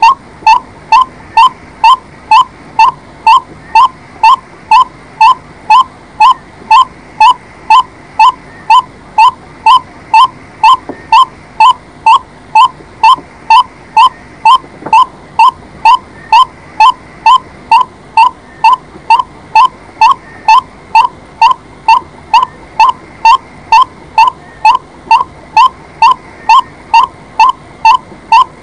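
White-breasted waterhen calling: one short, slightly rising note repeated at an even pace, about twice a second, without a break.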